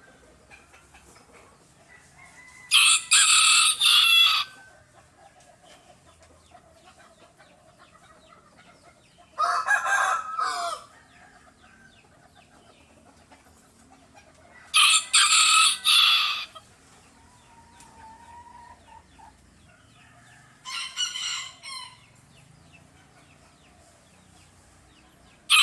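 A hen giving loud, crow-like calls, four times, each lasting about one and a half to two seconds, spaced roughly five to six seconds apart.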